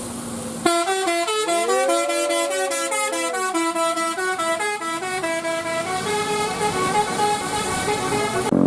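Bus 'telolet basuri' multi-tone air horn playing a quick melody of stepped notes, with a long sliding tone that rises and falls beneath it for a couple of seconds. The horn starts suddenly under a second in and cuts off near the end.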